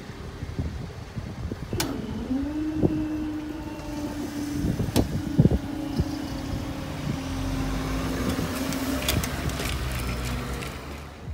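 Class 158 diesel multiple unit pulling away from the station under power. A steady engine drone holds for several seconds, then a deeper rumble builds as the train nears. A few sharp clicks are heard along the way.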